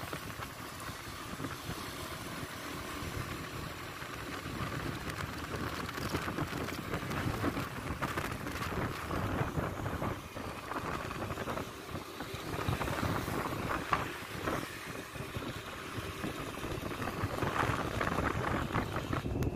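Wind rushing over the microphone with road and traffic noise from a moving vehicle, steady with small swells.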